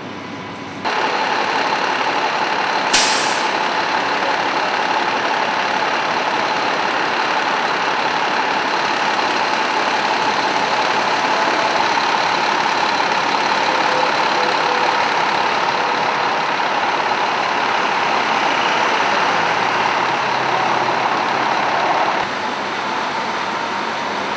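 Fire department ladder truck's diesel engine idling, with a steady whine over the running noise. A short, sharp air-brake hiss comes about three seconds in. Near the end the level drops a little.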